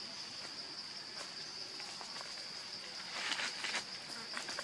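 Steady high-pitched insect drone, with a few soft rustles and clicks about three seconds in.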